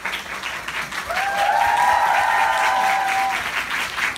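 Audience and cast applauding with dense, steady clapping. A long held cheer rises over it from about a second in and fades after the middle.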